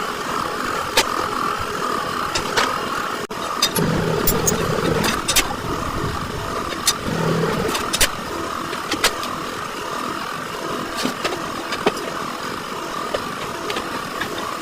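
Vehicle engines running nearby, with scattered sharp clicks and taps throughout.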